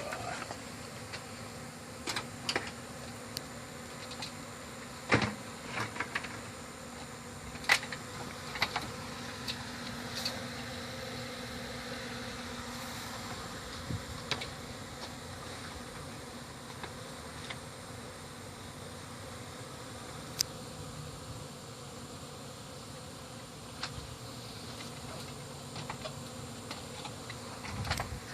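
Honey bees buzzing steadily as their hive is opened and cut out, broken by scattered sharp clicks and knocks, a few of them much louder than the buzzing.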